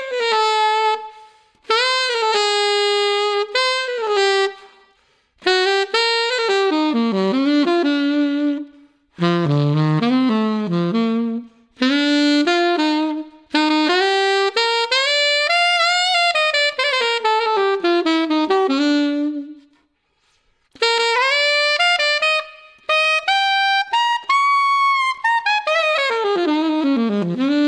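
Yanagisawa WO33 alto saxophone with its original solid silver neck, played unaccompanied on a BetterSax Burnin' 7 mouthpiece with a Jazz Cut 2.5 reed. It plays jazz phrases with short breaths between them and ends with a fast run down into the low register.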